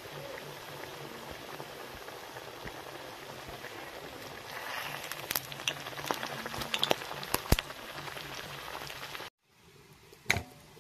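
Malpoa batter deep-frying in hot oil in a kadai: a steady sizzle that grows louder, with sharp crackles and pops, about halfway through. It stops abruptly near the end, and a single sharp click follows.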